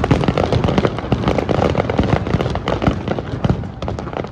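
Aerial fireworks going off in a dense, rapid crackle of many small pops and bangs, easing off slightly near the end.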